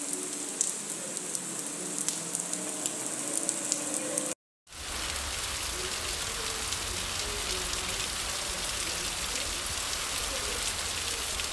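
Heavy rain falling, a steady hiss with scattered drop ticks. It cuts out for a moment about four and a half seconds in, then comes back denser and louder, with a low rumble under it.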